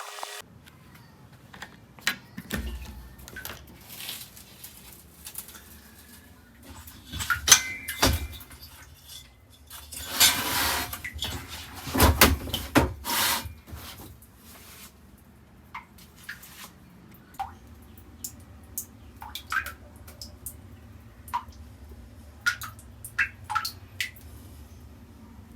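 Wet clatter inside a vapor blasting cabinet: scattered clinks, knocks and drips, with a brief burst of hissing spray about ten seconds in.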